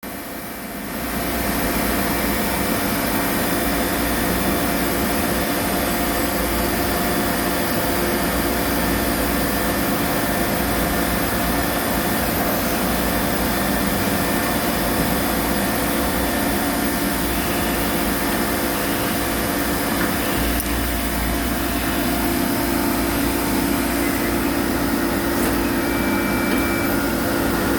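A CNC machine running steadily: a constant mechanical whir and hum with several fixed tones in it, coming up to full level about a second in.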